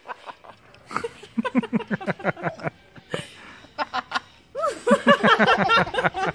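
People laughing heartily: a run of rhythmic 'ha-ha' pulses about a second in, then louder laughter from a woman and a small child near the end.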